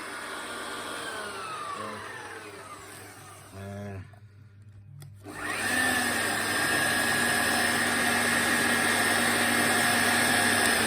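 Hilti TE 60 hammer drill's electric motor winding down with a falling whine after the trigger is released, stopping briefly, then starting again about five seconds in and running at a steady pitch. The machine runs at what the owner calls slow revs; in drill mode it spins too slowly to drill.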